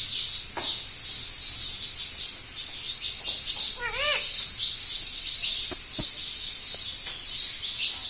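Pet parrot vocalising: a continuous run of high chirps, with one short, warbling, speech-like call about four seconds in.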